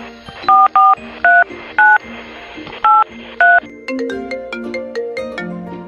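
Phone keypad dialing tones: six short two-note beeps over the first three and a half seconds. A bright, melodic phone ringtone of quick repeating notes then starts about four seconds in, all over soft background music.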